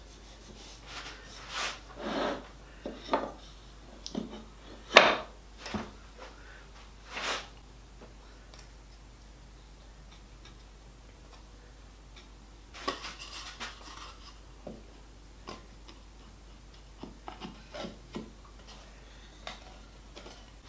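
Mitered wooden box sides being handled on a workbench: scattered knocks, taps and rubbing of wood, the loudest a sharp knock about five seconds in. After a quiet stretch come more light clattering and ticks as the taped, glued sides are folded up into a box.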